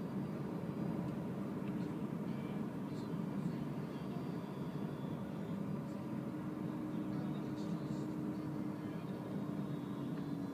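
Steady tyre and road noise heard inside the cabin of a Renault ZOE electric car driving at speed. A faint steady hum joins in about six seconds in.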